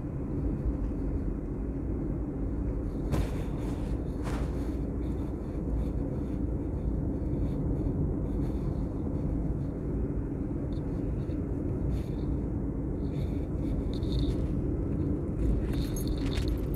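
Steady low rumble of a vehicle on the move, engine and wind noise on the microphone, with a constant low hum and a couple of brief clicks a few seconds in.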